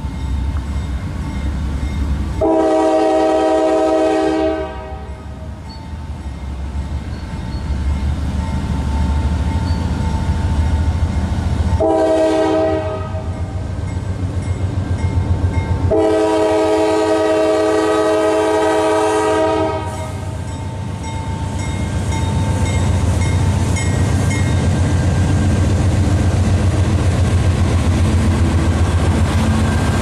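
GE C40-8W (Dash 8) diesel locomotive's multi-chime air horn: a long blast, a short one, then a long one. Under it runs the low rumble of the approaching diesel locomotives, growing louder toward the end.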